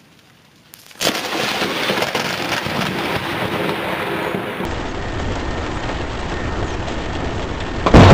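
Thunder: a sudden loud crack about a second in, followed by several seconds of steady rumbling noise. A second, louder burst of thunder comes right at the end.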